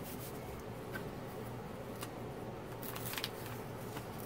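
Faint rustling of a diamond painting canvas and its release paper being smoothed and handled by hand, with a few light clicks, the clearest about three seconds in.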